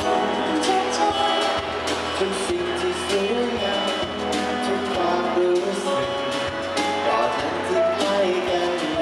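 A man singing a song live into a handheld microphone, accompanied by acoustic guitar, heard through a PA system.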